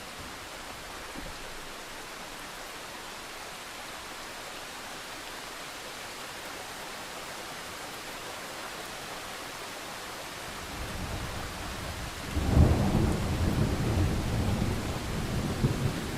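Thunderstorm: steady rain hiss, then thunder that builds as a low rumble near the end, breaking into a loud crack about twelve seconds in and rolling on.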